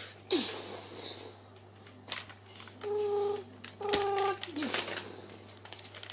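Toy battle robots' electronic sound effects: short falling zaps and hissing bursts, then two steady beeping tones about three and four seconds in, with a few sharp clicks of the plastic robots knocking together.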